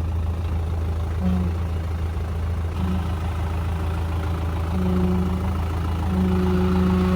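Mitsubishi Canter 4x4 truck's diesel engine running steadily at low revs, a deep even drone, with a higher note that comes and goes.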